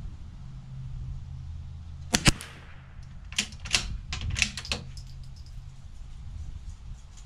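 .22 rimfire rifle firing once about two seconds in: a sharp crack followed closely by a second crack, with a short ring-out. About a second later comes a quick run of five or so sharp metallic clicks as the action is worked.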